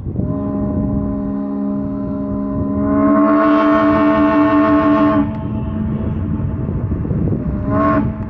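Paddle steamer's horn sounding one long, steady, many-toned blast that swells louder for about two seconds in the middle, then eases back, with a short louder burst near the end. Wind rumbles on the microphone.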